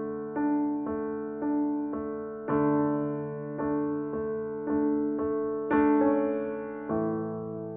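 Slow, gentle solo piano music: single notes struck about twice a second over held low notes, ending on a chord about seven seconds in that rings on and fades.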